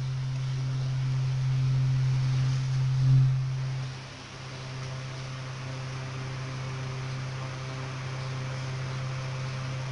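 Hot-air rework station's blower running: a steady low hum with a hiss of rushing air. It swells briefly about three seconds in, then drops to a lower, even level about four seconds in.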